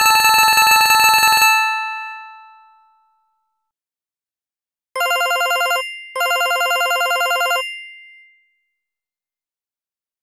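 VK Mobile VK100 phone ringtones played from MMF files through Yamaha's MidRadio synthesizer: a fast-trilling electronic ring of about a second and a half that rings out. A few seconds later a lower-pitched ring trills twice in short bursts.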